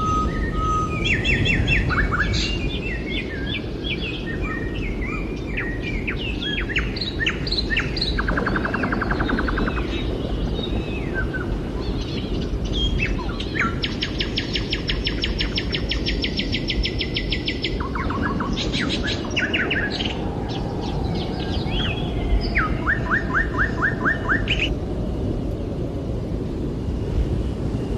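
Songbirds chirping and singing, with several fast trills (around 8–10 s, a long one from about 14 to 18 s, and another near 24 s), over a steady low background noise.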